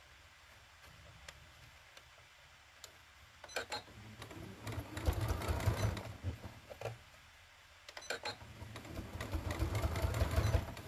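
Domestic electric sewing machine stitching fabric in two runs, the first starting about three and a half seconds in and the second about eight seconds in, each lasting roughly three seconds.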